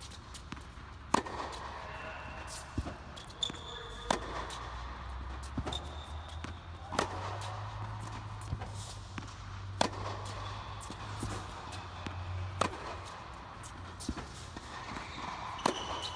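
Tennis ball struck by a racket on backhand groundstrokes in a rally: a sharp pop about every three seconds, with fainter knocks of the ball in between.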